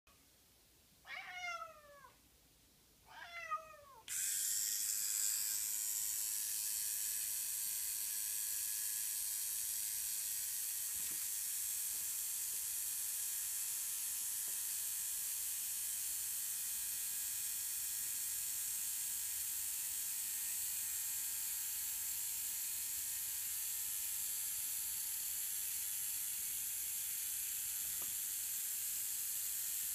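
A Siamese cat meows twice, each call falling in pitch. Then an electric beard trimmer, running without its blade cartridge, is switched on and whirs steadily with a high hiss for the rest of the time, with a few faint taps.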